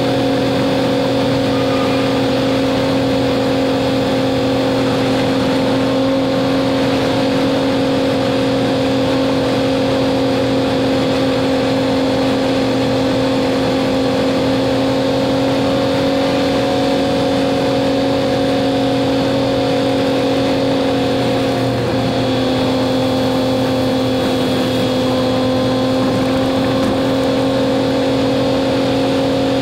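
Truck engine droning steadily at highway cruising speed, heard from inside the cab with road noise, its hum dipping slightly in pitch about three-quarters of the way through.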